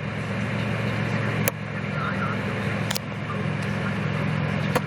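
Mazda 626 engine idling steadily under the load of the AC, headlights and high beams, which the owner takes as a sign of a failing alternator. A few sharp clicks come at intervals of about a second and a half.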